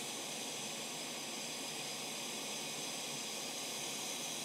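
Steady hiss of a hot-air rework station's nozzle blowing hot air over a surface-mount chip as it is soldered onto a laptop motherboard.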